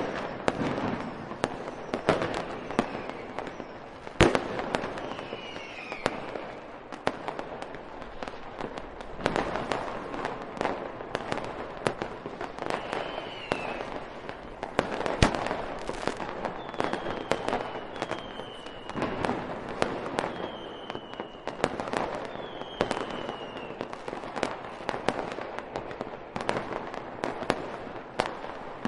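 Fireworks going off: a continual, irregular string of bangs and crackling, with several short falling whistles along the way.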